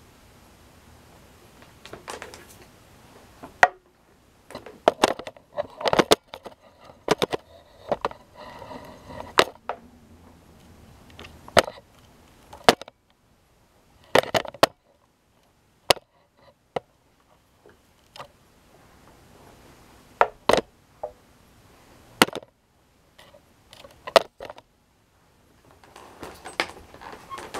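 Irregular sharp knocks and clicks with some rustling between them, the busiest stretch in the first third, then single knocks a few seconds apart with short quiet gaps.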